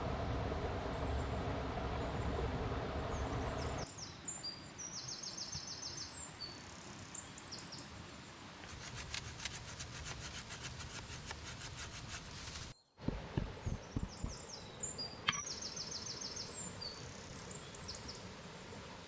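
A steady low rumble for the first few seconds cuts off abruptly, giving way to quiet outdoor ambience with songbirds chirping. The birdsong includes a rapid ticking trill lasting a few seconds. After a brief dropout there are a few low thumps and a sharp click, then more bird chirps.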